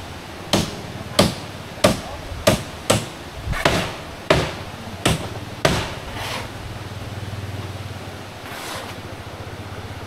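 Hammer nailing column formwork: about ten sharp strikes, roughly one every two-thirds of a second, stopping about six seconds in. A low steady hum follows.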